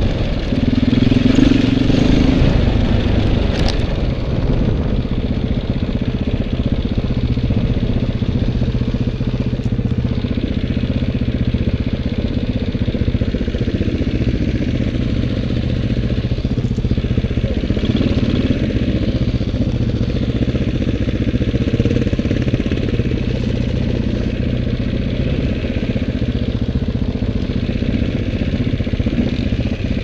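Dirt bike engines running: a steady motorcycle engine note at low speed, a little louder and higher about a second or two in, then settling to a steady beat.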